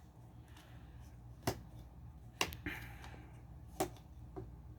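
Motorized moving platforms of a toy playset running on their own, a faint steady hum with four sharp plastic clicks at uneven intervals.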